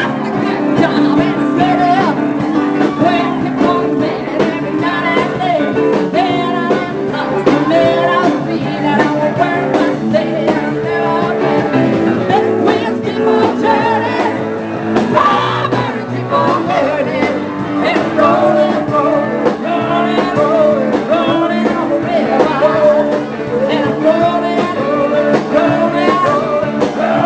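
Live rock and roll band playing, with guitar, drums and a singer.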